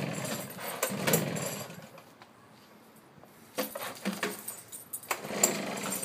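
Irregular rattling and knocking of an Echo backpack leaf blower's plastic tube as a dog bites and tugs at it. The clatter is loudest in the first two seconds, stops for a moment, and starts again about three and a half seconds in.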